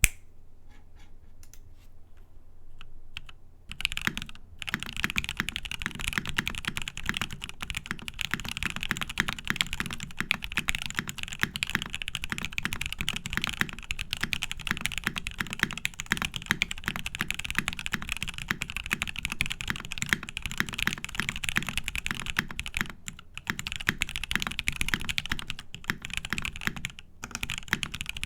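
Typing on an NRD Kaze prototype mechanical keyboard, top-mounted with an aluminium plate, Krytox-lubed Gateron Ink Black linear switches and dye-sub keycaps. A few scattered keystrokes come first, then from about four seconds in a fast, dense run of typing with two brief pauses near the end.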